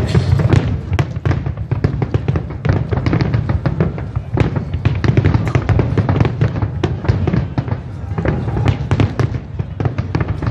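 Fireworks going off in a dense, rapid run of bangs and crackles, many per second, with no break.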